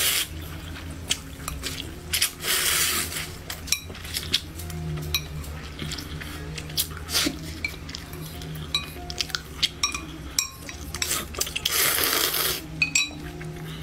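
Close-up eating sounds of slurping instant noodles and red soup, with chopsticks clicking against a glass bowl. There are many small clicks and mouth smacks, and two longer slurps: one about three seconds in, and one near the end as the soup is sipped straight from the bowl.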